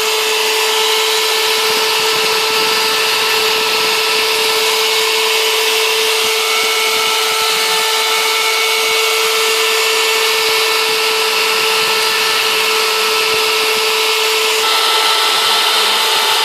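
CNC router spindle running steadily as it mills foam, a loud whine made of several steady tones over a hiss. About fifteen seconds in, its tone changes and it gets slightly louder.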